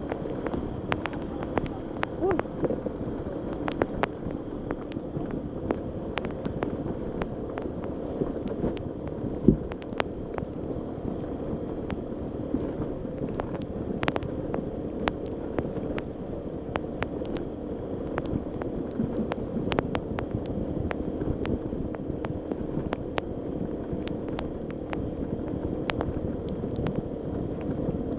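Honda ADV150 scooter's single-cylinder engine running steadily on a rough off-road track, with frequent sharp clicks and knocks from the bumpy ride and one louder knock about nine and a half seconds in.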